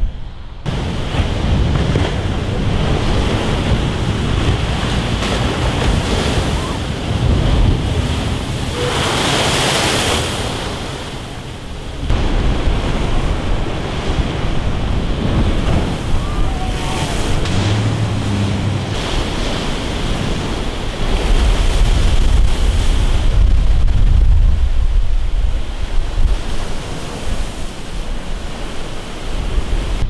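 Rough sea surf breaking and washing ashore in a continuous hiss, with strong wind rumbling on the microphone. One wave breaks with a louder, brighter hiss about ten seconds in.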